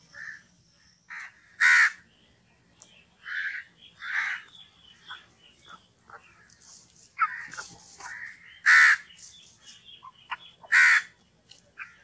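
House crow cawing: a string of caws, a few loud ones among softer ones.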